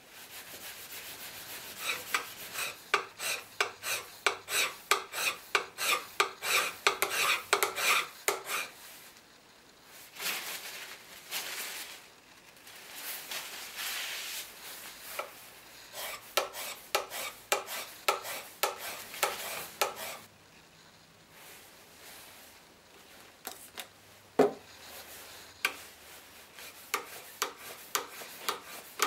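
Steel plough plane iron being honed on flat sharpening plates: quick back-and-forth scraping strokes, about two to three a second, in runs with short pauses. One sharp knock comes near the end.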